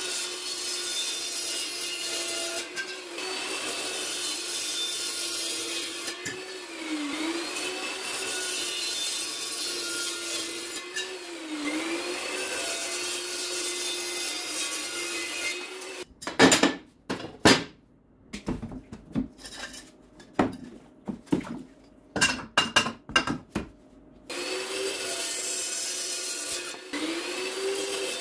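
A handheld power tool running, its motor pitch sagging and recovering every few seconds as it is pressed into the work. About halfway through it stops for several seconds of loud, irregular knocks, then runs again.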